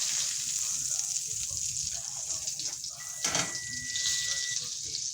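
Butter and fat sizzling in a hot frying pan, a steady hiss. A steady high beep sounds for about a second and a half about three seconds in.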